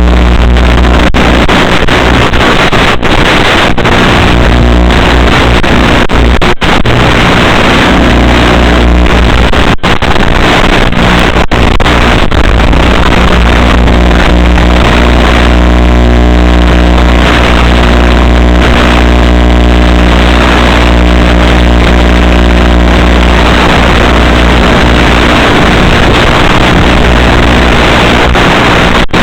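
Brushless electric motor and propeller of an Assassin FPV flying wing running steadily under power, its whine shifting a little in pitch with throttle. Heavy wind rumble on the microphone and clipped, distorted audio sit under it, with a few momentary dropouts.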